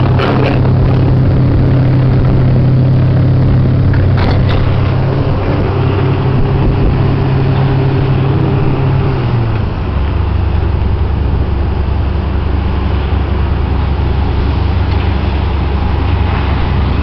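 Komatsu PC300-7 excavator's six-cylinder diesel engine running under load while its MTB 255 hydraulic breaker hammers at the rock of a trench wall. About ten seconds in, the steady engine note steps down to a lower pitch.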